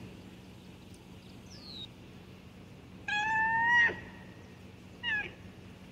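An animal's drawn-out, meow-like call about three seconds in, slightly rising in pitch, then a shorter call near the end.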